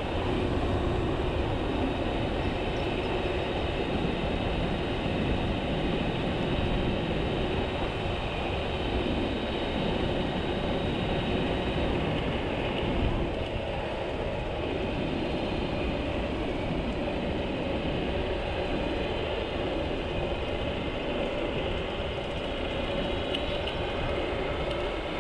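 Steady wind rushing over the microphone with road noise from a Dualtron Spider electric scooter riding at speed on an asphalt path. The rush is heaviest in the low end and continues without a break.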